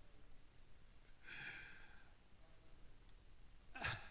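Faint breathing into a close handheld microphone: a soft, hissy exhale about a second in and a short, sharper breath near the end, in a pause between spoken phrases.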